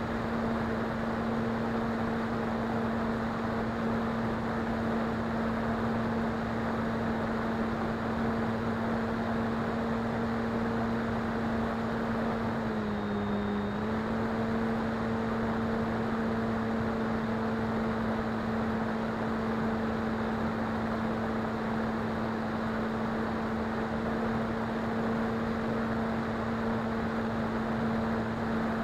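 Model plane's electric motor and propeller running at a steady hum, heard from on board over a rush of wind. About thirteen seconds in, the pitch dips briefly as the throttle eases, then settles back.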